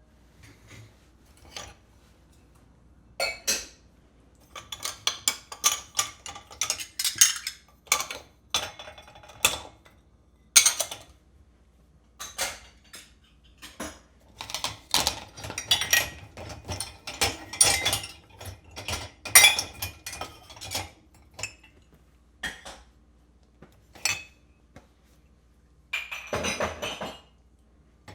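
Dishes and cutlery being unloaded from a dishwasher: irregular clusters of clinks and clatters as plates, glasses and silverware are lifted out and set down, with a few short pauses between.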